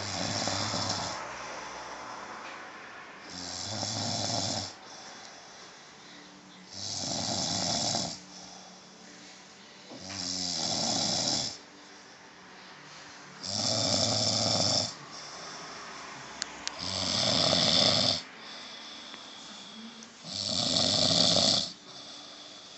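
A woman snoring in her sleep: seven snores, one about every three and a half seconds, each lasting about a second and a half.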